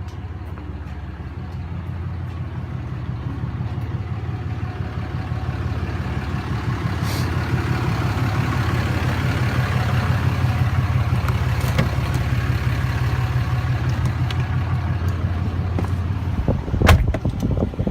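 Car engine and road noise while driving: a steady low hum that grows louder over the first several seconds. Near the end there is a sharp knock.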